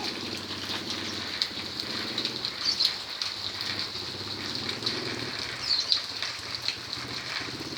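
Steady rain falling, many drops hitting surfaces, with a few brief high chirps about three and six seconds in.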